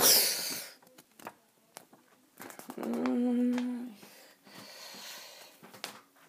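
A person's voice without words: a loud breathy rush at the start, then one steady hummed note about three seconds in, lasting about a second, with faint rustles between.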